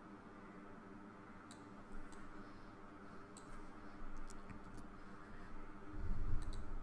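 Computer mouse buttons clicking a few times, short sharp clicks, some in quick press-and-release pairs, over a steady low electrical hum. A low rumble near the end, the loudest sound.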